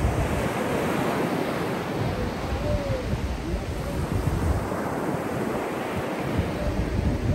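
Small waves breaking and washing up a sandy shore in a steady, swelling roar of surf, with wind buffeting the microphone.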